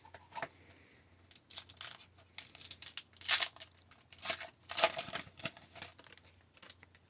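A hockey card pack's wrapper being torn open and crinkled by hand, in a series of short rustling bursts.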